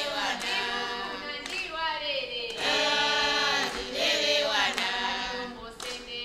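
A group of voices singing together, with occasional hand claps.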